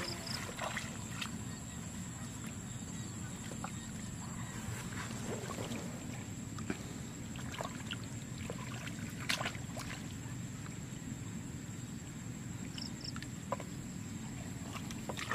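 Hands splashing and squelching in shallow muddy water while groping for fish, heard as scattered short splashes, the sharpest about nine seconds in, over a steady low rumble.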